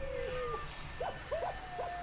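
Canine howling sound effect: a long howl sliding down in pitch, then a run of short yips about halfway through, and another held howl starting near the end.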